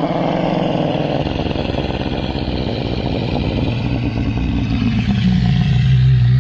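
Dinosaur roar sound effect for a triceratops: one long, rough, rumbling growl whose pitch wavers, settling into a steady low drone near the end.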